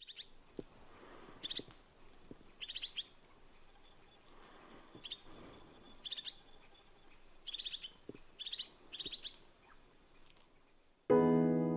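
Wild birds calling: short bursts of high-pitched chirps, repeated every second or so over quiet outdoor background. Near the end, piano music comes in suddenly and is louder than the birds.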